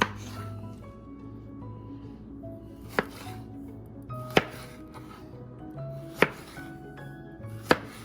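A kitchen knife chopping on a cutting board: five single sharp strikes, irregularly spaced one to three seconds apart, over background music.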